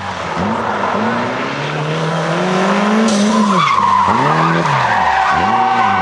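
Toyota Celica rally car's engine revving up and down again and again as it slides through a tight corner, with its tyres screeching on tarmac: a rough skid about halfway through and a long steady squeal near the end.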